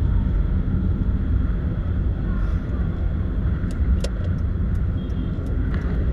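Steady low rumble of a car being driven, heard from inside the cabin: engine and road noise, with a few faint light clicks in the second half.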